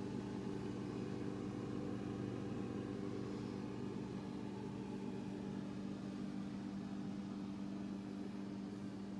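Refrigerator-freezer running with a steady, even hum made of several constant low tones.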